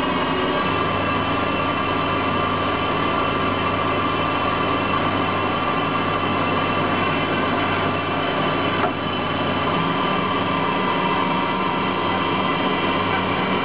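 Emco Turn 120 CNC lathe running: a steady machine whine with several held tones. One sharp click comes about nine seconds in.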